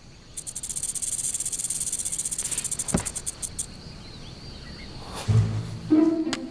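A fast, rattling hiss from a pet snake stirring awake in a small container, lasting about three seconds, with a single knock about three seconds in.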